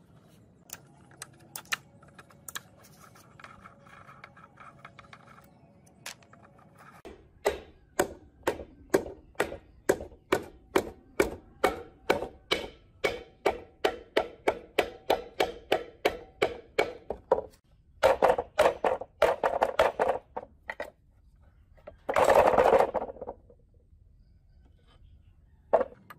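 Metal-on-metal tapping on the crankcase of a small four-stroke water pump engine as it is worked apart: about two sharp knocks a second for some ten seconds, then a quicker flurry of knocks and a brief louder scrape.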